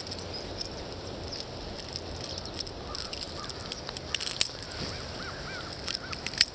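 River water running steadily, with a few sharp splashes or clicks about halfway through and again near the end, and a short run of small high chirps just before the end.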